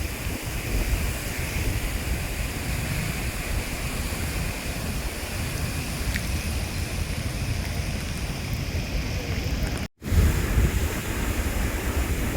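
Cyclone-force wind buffeting the microphone in a heavy low rumble over the steady rush of rough sea surf. The sound cuts out completely for a split second near the end.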